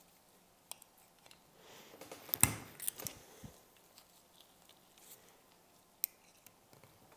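Small metal clicks and scrapes of a snap ring being worked into a Honda brake caliper's piston bore with snap ring pliers and a pick. The loudest cluster of clicks comes about two and a half seconds in, with another sharp click near six seconds.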